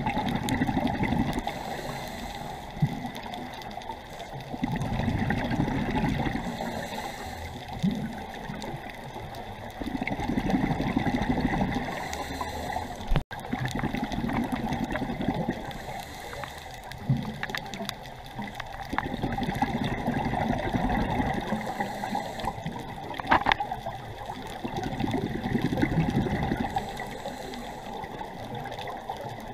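Scuba diver breathing through a regulator underwater: exhaled air bubbles out in gurgling bursts of about two seconds, roughly every five seconds.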